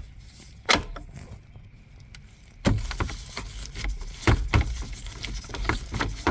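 Clicks, knocks and rustling of a Torx bit and plastic trim as the driver's airbag module is unbolted and worked off a Kia Sorento steering wheel. One sharp click about a second in, then irregular knocks with rustling from about the middle on.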